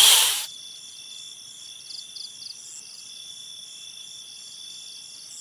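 A snake's hiss cuts off about half a second in, leaving a steady night ambience of crickets chirping, with a few short pulsed trills about two seconds in.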